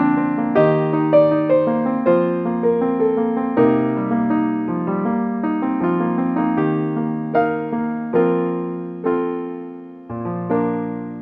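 Slow, gentle solo piano music: single notes over held chords, ending on a last chord about ten seconds in that rings away.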